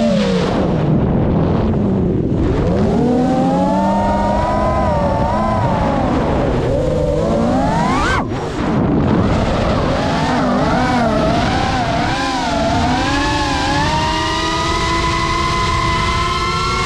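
Brushless motors of a GEPRC Mark 5 FPV quadcopter whining in flight, the pitch sliding up and down with the throttle over a rush of air. About eight seconds in the whine climbs steeply, then drops out for a moment and comes back.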